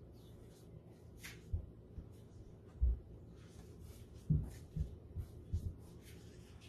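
Handling an Apple Watch box and its parts: a few light knocks and taps, the strongest about three seconds in, over soft rustling of paper and plastic packaging.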